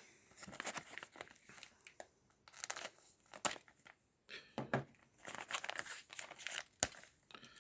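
Packaging crinkling and rustling, with short tearing sounds and small clicks, as a lock pick set is unwrapped and its case opened.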